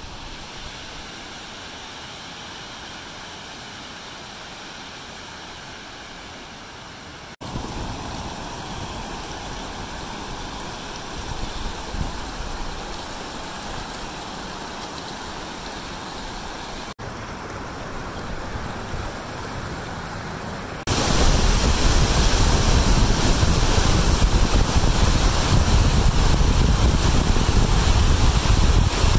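Rushing water of a river running over rock ledges and down a dam spillway: a steady noise that changes level at cuts about 7 and 17 seconds in, and is loudest, with a deep rumble, over the last eight seconds.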